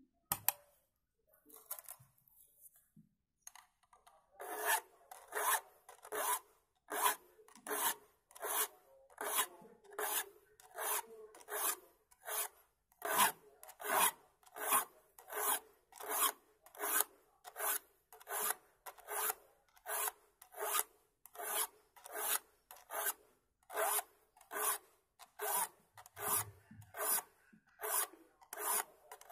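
Steel file rasping across the teeth of a wood handsaw, sharpening it: about four seconds in, regular back-and-forth scraping strokes begin, about two a second, and carry on evenly.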